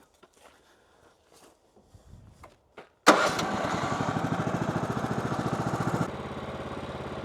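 Sawmill engine starting, catching suddenly about three seconds in after a few faint clicks. It runs fast and evenly, then drops to a lower, steady idle about three seconds later.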